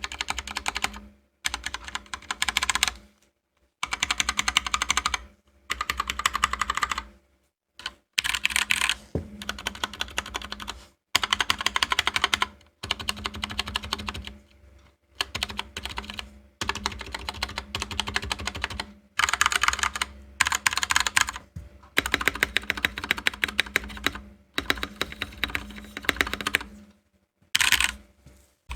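Typing sound test on an Anne Pro 2 mechanical keyboard with tactile Gateron Brown switches: runs of fast key clacks, each a second or two long, broken by short pauses.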